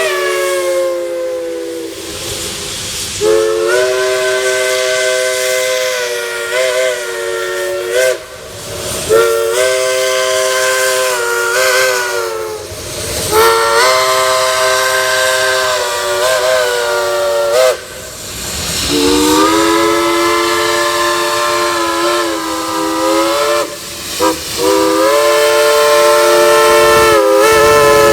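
Steam locomotive chime whistle sounding several notes at once, blown in a series of long blasts with a few short toots between, the pitch bending as the whistle is opened and closed. Steam hisses between the blasts.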